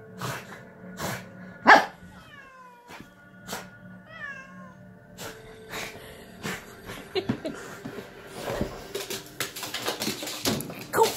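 Cat meowing at a French bulldog: two drawn-out meows that fall in pitch, about two and four seconds in, after a sharp loud noise. Later come many quick clicks and knocks as the bulldog scrambles across the hardwood floor.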